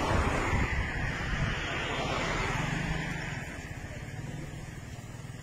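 Road traffic: a passing car's rushing noise, loudest at first and fading away over a few seconds.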